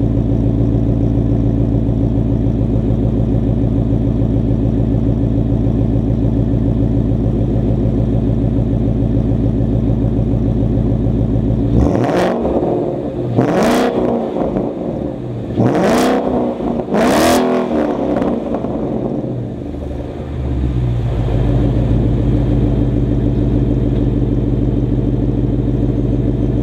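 2015 Mustang GT's 5.0-litre V8 through a Corsa Sport cat-back exhaust, idling steadily. About halfway through it is revved four times in quick succession, each rev rising and falling, before it settles back to idle.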